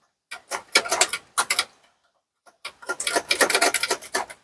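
Rapid clicking and clattering of hard parts being handled, in two bursts of about a second and a half each, with a short pause between.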